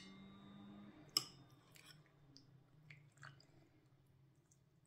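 Near silence broken by a few faint light clicks, the clearest about a second in: a metal spoon touching the curry bowl.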